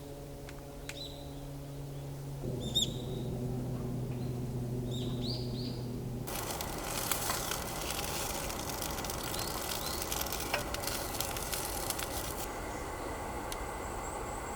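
Birds chirping over a low steady hum that shifts pitch once; about six seconds in the sound cuts abruptly to a dense, steady hiss that continues.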